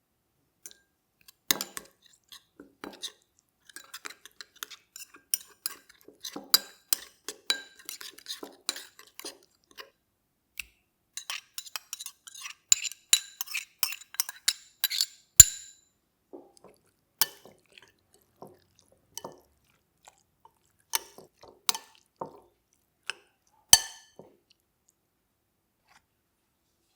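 Kitchenware clinking: utensils tapping and scraping against glass bowls and dishes in quick, irregular clinks, with a few sharper knocks.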